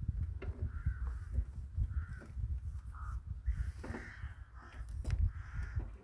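Crows cawing, several short calls a second or so apart, over a low rumble.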